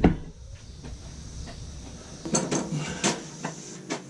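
A loud knock right at the start, then a quick run of sharp knocks and clanks about two seconds in, as tools and building materials are handled in wall-framing work.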